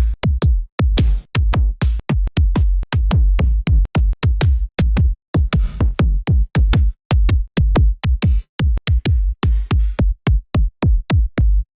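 Electronic drum-machine samples from a synthwave drum kit played one after another: short, punchy hits with a deep low end, about three or four a second, each separate with brief gaps between them.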